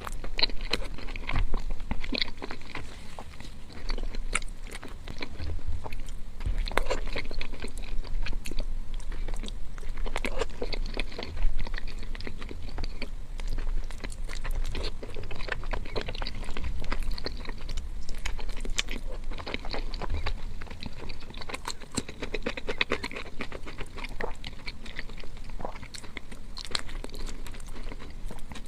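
Close-miked eating sounds of Kayseri yağlama, a layered flatbread with minced meat and yogurt sauce: continuous irregular wet chewing, with crunchy bites throughout.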